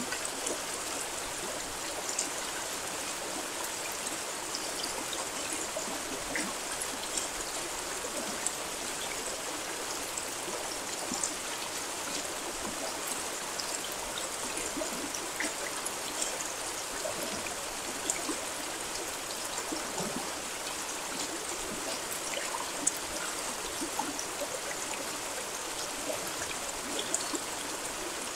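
Steady rain: an even hiss of falling water with many small drop ticks scattered through it.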